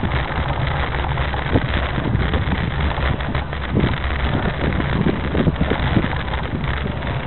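Bicycle rattling and jolting over cobblestones, a continuous rumble with irregular knocks, with wind on the microphone.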